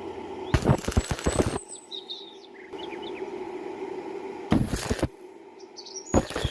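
Stick-welding (SMAW) arc crackling in three short bursts, as when tacking or running short lengths of bead across a wide gap, over a steady hum. Birds chirp briefly between the bursts.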